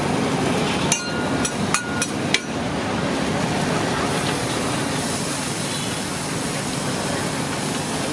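Metal cooking utensils knocking on the steel dosa griddle about five times in quick succession about a second in, each a sharp clink with a brief ring. A steady hiss of the busy stall follows.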